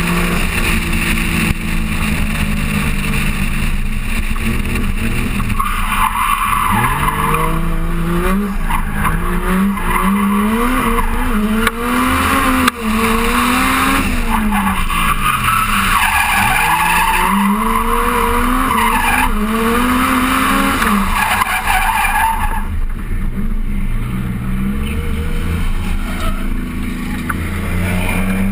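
Drift car's engine revving up and down again and again as it slides, with its tyres squealing in long stretches, heard from a camera mounted on the car's body. The tyre squeal stops about two-thirds of the way through, leaving the engine.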